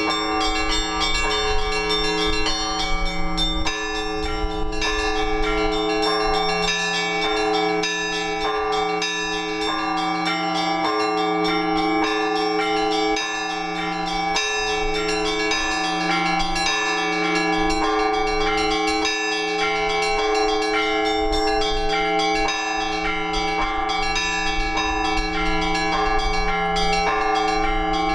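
Orthodox church bells rung from the belfry: a low bell struck again every second or two under rapid, overlapping strikes of the smaller bells, all ringing together.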